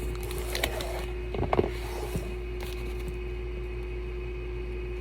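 A few light knocks and clicks of packaging and the boxed item being handled, the loudest about a second and a half in, over a steady electrical hum.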